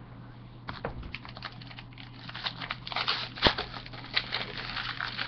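Foil trading-card pack crinkling and crackling as it is torn open by hand, the crackles thickening after about two and a half seconds, with one sharp snap about three and a half seconds in.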